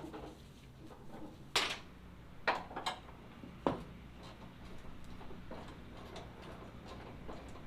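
A few sharp clunks and knocks, four of them in the first half, from hand tools and hardware being handled while a pickup truck door is unbolted. A quieter, uneven shuffling follows.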